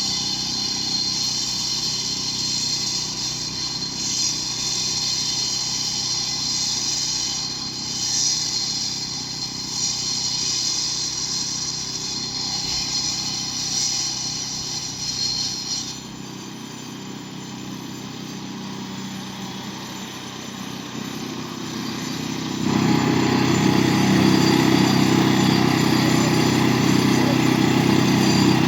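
Small engine of a concrete saw running while it cuts a control joint into a concrete slab, with a steady high hiss from the blade. About two-thirds of the way through, the hiss drops away and the sound goes quieter. Near the end it comes back louder and lower.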